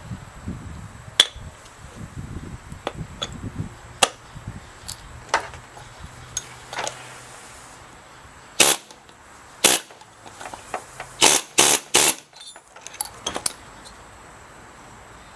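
Metal alternator parts and hand tools clicking and knocking against each other during a bearing replacement. About two-thirds of the way in come five louder, sharper strikes.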